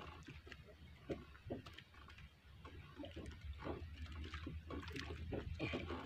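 Water lapping and sloshing against a small wooden outrigger canoe's hull, with irregular small splashes and drips, over a steady low rumble.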